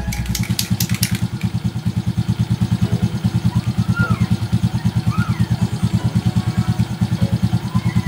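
Motorcycle engine running at a steady idle, a regular pulse of about ten beats a second. In the first second there are a few short hisses of aerosol chain lube being sprayed onto the chain.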